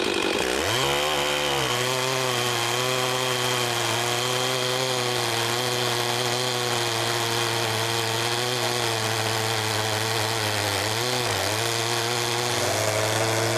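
Chainsaw ripping lengthwise through a log in a Logosol Timberjig chainsaw mill, running steadily under load with a skip-tooth chain. The engine note sags right at the start and again briefly about eleven seconds in. The saw is lugging in the cut even with the skip chain, and the cut is bumpier with fewer teeth.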